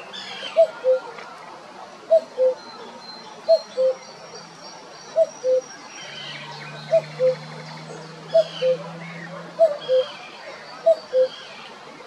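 Male common cuckoo calling its two-note "cuck-oo", the second note lower than the first, repeated about every one and a half seconds, eight times in a row. Other small birds chirp and trill faintly behind it.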